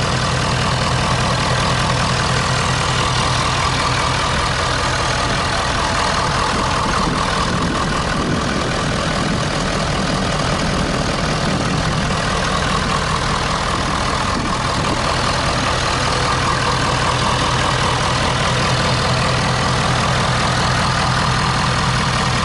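2011 Ford F-250 Super Duty's engine idling steadily and smoothly, heard from in front of the open hood.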